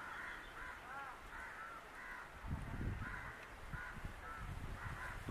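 Birds calling repeatedly, about two or three short calls a second. A low rumble comes and goes from about halfway through.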